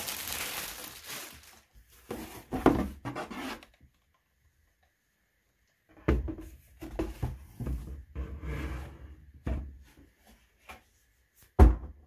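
Plastic wrapping rustling and cardboard box handling as an air purifier is lifted out and unwrapped, broken by a couple of seconds of dead silence midway. Near the end comes one sharp, loud thump as the purifier is set down on a wooden table.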